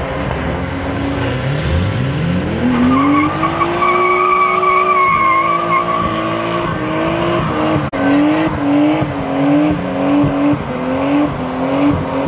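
Car engine revved hard and held high while the car spins its rear tyres in a smoky burnout and donuts. The pitch climbs steeply about two seconds in, then rises and falls about twice a second under the throttle, with tyres screeching for a few seconds.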